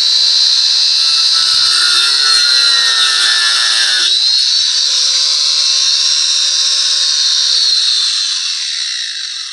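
Wonder Cut electric angle grinder with a toothed wood-cutting blade, whining at speed while it cuts into a wooden log. About four seconds in the rougher cutting noise drops away and the motor runs on unloaded, then winds down near the end.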